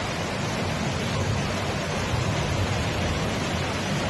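Steady rush of floodwater flowing through a street, an even noise with no breaks.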